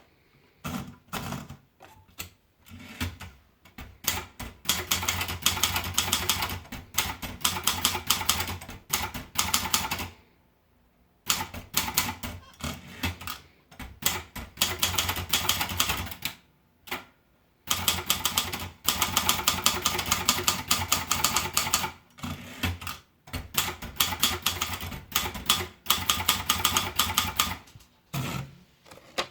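Silver Reed SR100 typewriter being typed on: runs of rapid key strikes, several a second, broken by a few brief pauses.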